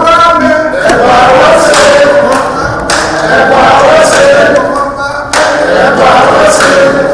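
A group of people singing and chanting together in celebration, loud and continuous.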